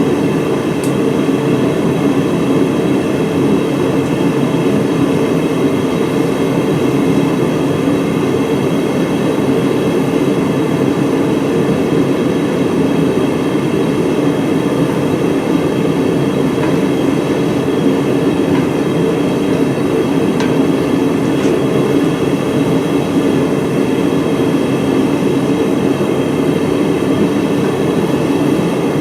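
Blacksmith's forge fire running with a loud, steady roar from its air blast while a striker forged from an old file heats toward hardening temperature.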